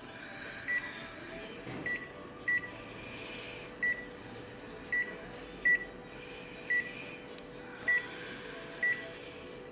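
Photocopier control-panel keys beeping about nine times at uneven intervals as settings are keyed in, over a steady machine hum that rises into place about a second and a half in.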